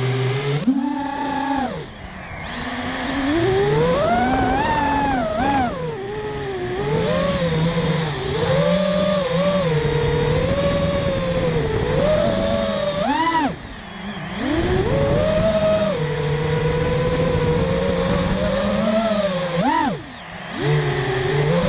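FPV racing quadcopter's brushless motors and propellers whining, heard from the onboard camera, the pitch rising and falling continually with the throttle. The sound drops away briefly three times, about two seconds in, around the middle and near the end, as the throttle is cut and picked up again.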